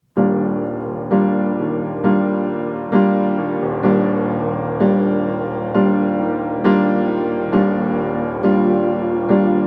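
Slow background piano music: a chord struck about once a second, each ringing and fading before the next.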